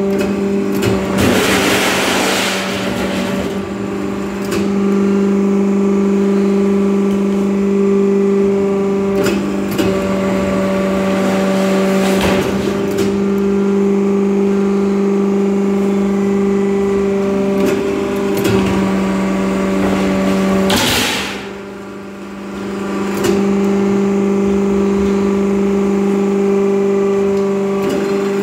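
Bending press machine running with a steady, loud motor hum. Short hissing surges come a few times; the loudest, about three-quarters of the way through, is followed by a brief drop in the hum before it resumes.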